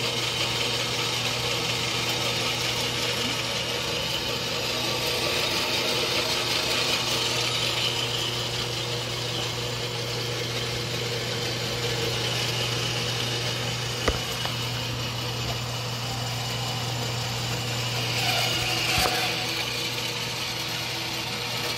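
Dayton horizontal band saw running and cutting through aluminum T-slot extrusion: a steady motor hum under a continuous high hiss of the blade in the metal. A single sharp click about fourteen seconds in.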